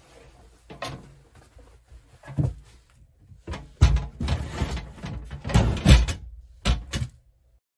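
A metal wall safe being pushed and shifted into a hole cut in sheetrock between wooden studs: a series of knocks and clunks with scraping between them, the loudest about four and six seconds in, stopping abruptly near the end.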